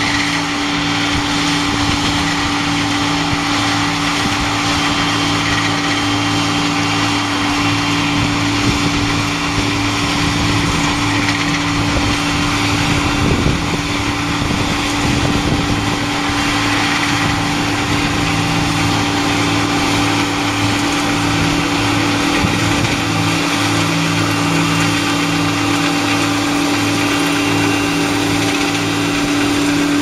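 New Holland VL660 grape harvester running steadily while it harvests along a vine row: an even machine noise with a constant hum that does not rise or fall.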